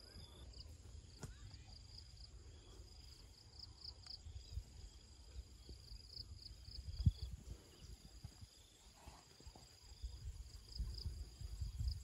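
Insects chirping in a rice field, a thin high trill that pulses in short runs throughout, over a low uneven rumble with a sharp thump about seven seconds in.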